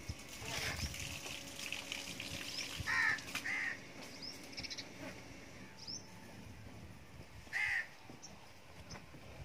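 A crow cawing: two harsh caws in quick succession about three seconds in and one more near the end, over faint high chirps.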